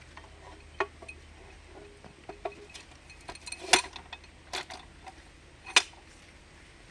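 Scattered light metallic clinks and knocks as tools and drilling gear are handled and set up; the core drill is not running. The two sharpest knocks come a little past the middle and near the end.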